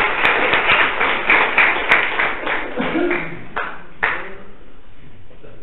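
A small group of people clapping, with a voice or two among it. The clapping dies away about four seconds in.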